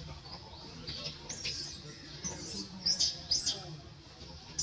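Baby macaque crying in a series of short, high-pitched squeals, starting about a second in and coming in quick groups of two or three.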